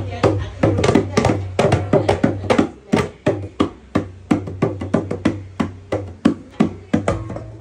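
A drum struck over and over in a quick, somewhat uneven rhythm, about four hits a second, with a low steady hum underneath.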